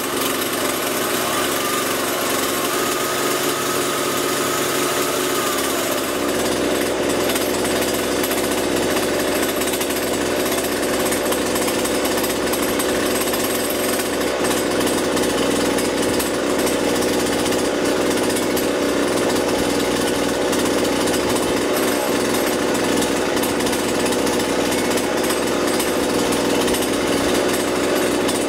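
Husqvarna 120 Mark II two-stroke chainsaw engine idling steadily while its T (idle speed) screw is turned with a screwdriver. The engine's tone shifts about six seconds in as the idle is adjusted.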